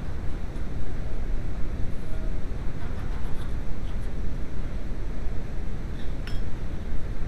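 A steady low rumble, with a few faint light clicks and clinks of hand tools being handled.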